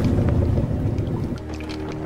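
Soundtrack effect of wind and sea rushing, with scattered clicks, giving way about a second and a half in to a held low music chord.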